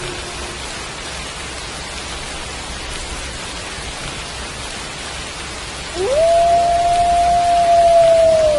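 Steady rain falling, with a wolf howling near the end: one long call that rises quickly, holds a level note and starts to fall away. The tail of an earlier howl fades out just at the start.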